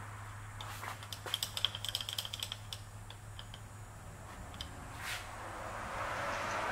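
Milling machine rotary table being turned by hand: a run of quick, light metallic clicks and ticks over a steady low machine hum. A hiss comes up near the end.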